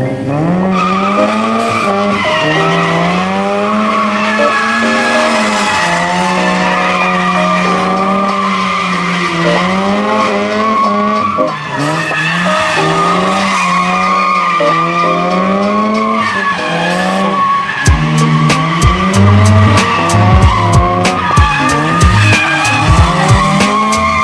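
Mazda RX-8 rotary engine revving up and down hard while drifting, with tyres squealing. In the last few seconds there are repeated sharp thumps.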